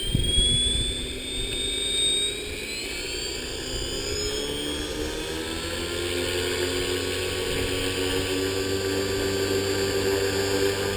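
Align T-REX 450 Pro electric RC helicopter spooling up on the ground. A high brushless-motor whine rises in pitch over the first few seconds, while the main rotor's hum climbs steadily as the blades gather speed.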